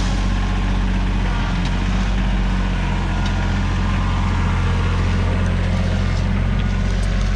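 Tractor engine running steadily at an even speed, holding one pitch throughout.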